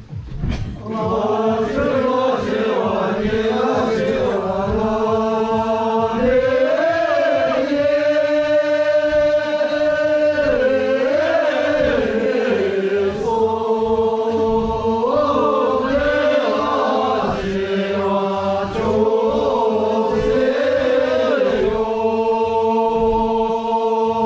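A group of Sherpa voices singing a slow song together in unison, with long held notes that glide from one pitch to the next.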